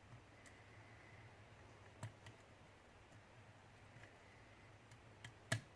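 Lock pick clicking against the pins inside a pin-tumbler challenge lock: a handful of small, separate clicks at uneven intervals, the loudest one near the end.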